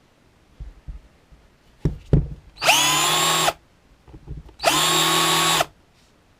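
Parkside 12 V cordless drill/driver run briefly twice, each run about a second long, its motor whining up to speed and stopping on trigger release. It is preceded by a few handling knocks.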